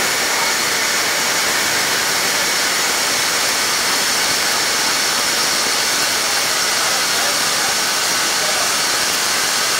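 Steam hissing steadily from a narrow-gauge cogwheel steam locomotive standing at the platform, venting without any exhaust beat.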